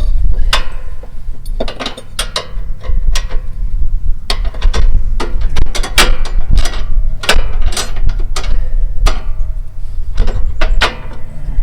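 Irregular metallic clicks and knocks of steel parts and tools being worked under a lawn tractor while the mower deck's stop bracket is fitted, over a steady low rumble.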